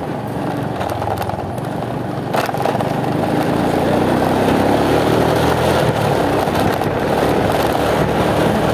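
Motorcycle engine running under way, with a steady pitched drone; about two and a half seconds in it gets louder as the bike speeds up and pulls away past the car ahead.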